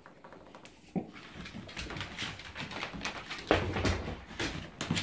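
A dog sniffing and stepping about on a hardwood floor: a string of short, irregular noisy puffs and taps, the loudest about three and a half seconds in.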